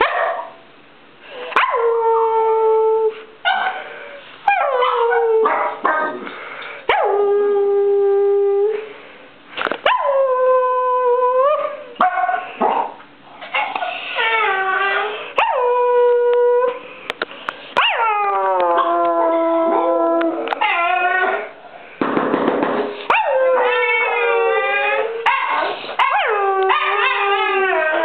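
Small dogs howling, one long wavering call after another with short yips between, and from about two-thirds of the way in, two or more howling at once.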